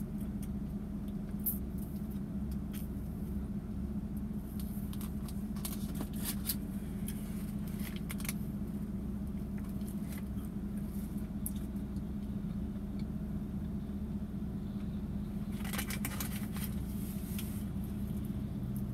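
Steady low hum of the vehicle heard from inside its cabin, with scattered crinkles of a paper sleeve and chewing as a breakfast wrap is eaten. The crinkling thickens into a short burst near the end.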